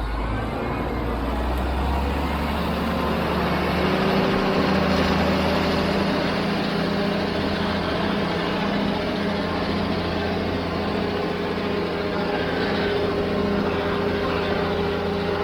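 Heavy diesel engine of construction machinery running steadily; its note rises about two to four seconds in and then holds.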